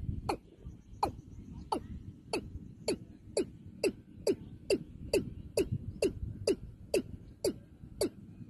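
Male watercock calling from a cage: a steady series of short, sharply downward-sliding notes, about two a second, over a low rumble.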